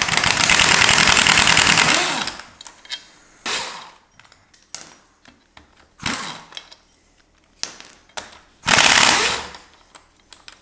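Pneumatic impact wrench hammering in bursts on rusted-on bolts at the flywheel end of the engine: a long burst of about two seconds at the start, two short blips, then another burst of about a second near the end.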